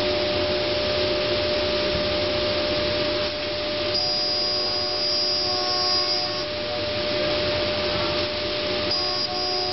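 Multicam 3000 Series CNC router running: a steady machine noise with a constant hum tone. A high whine comes in about four seconds in, drops away a couple of seconds later and returns near the end.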